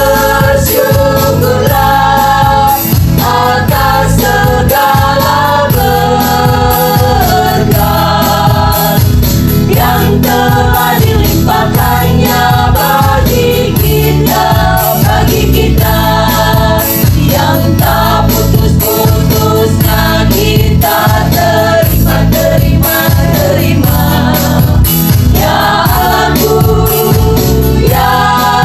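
Women's group singing a masamper song in several voices together, over an accompaniment with a steady bass beat.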